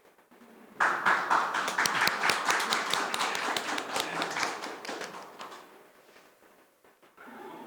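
A small group of people clapping. The applause starts abruptly about a second in and dies away over the next five seconds.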